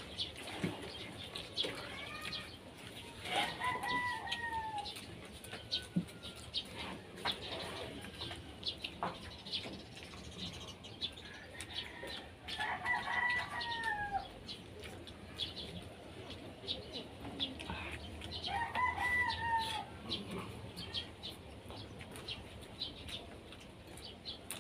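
A rooster crowing three times, each crow about a second and a half long and dropping in pitch at the end. Small clicks and smacks of people eating with their hands run underneath.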